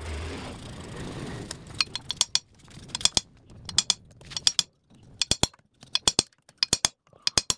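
Socket ratchet wrench clicking in short runs of two to four clicks, about every three quarters of a second, as it is swung back and forth on a bolt of a Suzuki cylinder head. The clicking begins after a second or so of rustling from handling.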